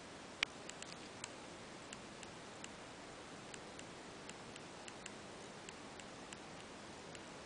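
Faint, rapid ticking, about three small clicks a second and fairly regular, over a steady hiss, with one sharper click about half a second in.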